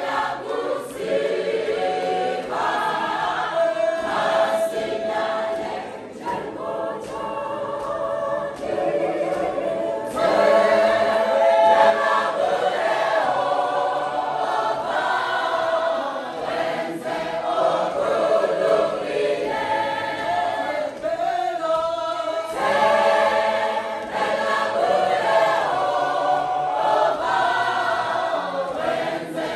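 Large women's choir singing together, unaccompanied.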